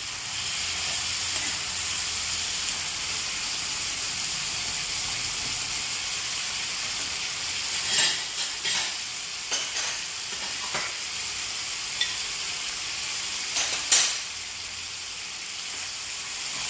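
Skin-on chicken pieces sizzling steadily in a cast-iron skillet. From about halfway through comes a run of sharp clacks as metal tongs knock on the pan while the pieces are turned.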